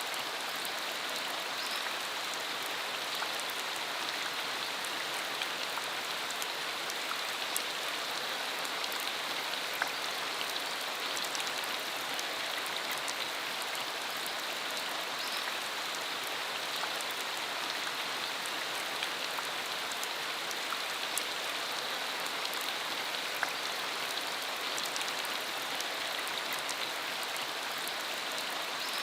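Steady rain falling: an even, unbroken hiss with scattered sharp ticks of individual drops.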